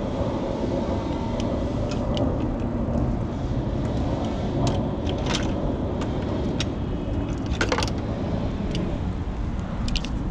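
Scattered light clicks and clatter of diagnostic equipment being handled, over a steady low rumble.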